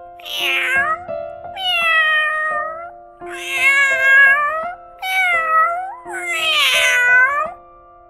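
Domestic cat meowing: about five long, drawn-out meows, each rising and falling in pitch, over quiet background music with held notes.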